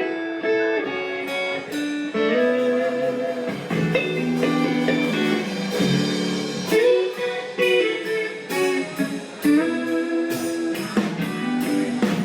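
Guitar playing a slow, bluesy instrumental intro of chords and single notes, live band music before the singing begins.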